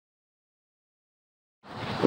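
Silence for about a second and a half, then sound fades in faintly near the end: a mix of noise and faint sustained tones as the recording of a brass quintet begins.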